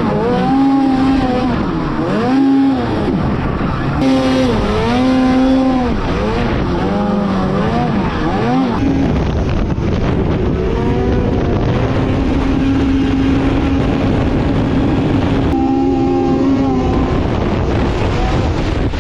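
Snowmobile engine revving, its pitch rising and falling with throttle over and over for the first half, then running at steadier, more even revs with a few more rises near the end.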